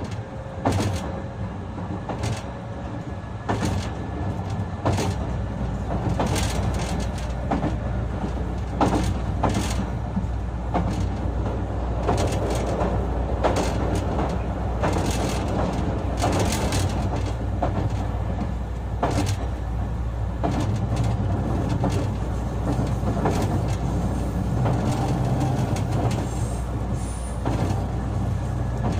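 JR West 221 series electric train running, heard from inside motor car Moha 221-66: a steady low rumble with irregular clacks of the wheels over rail joints. The rumble grows louder about five seconds in.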